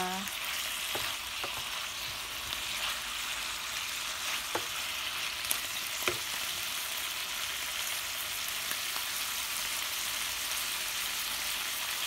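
Chicken breast steak and onions sizzling steadily in a frying pan, with a few light clicks of a utensil against the pan.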